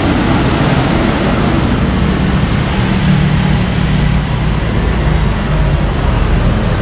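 A motorcycle engine running steadily at idle, loud, with a rushing noise over it.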